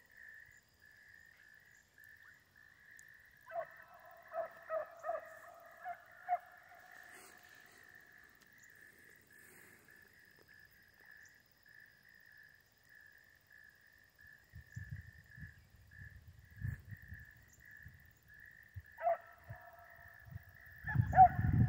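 A pack of beagles baying in the distance as they run a rabbit's track: a string of calls a few seconds in and another near the end.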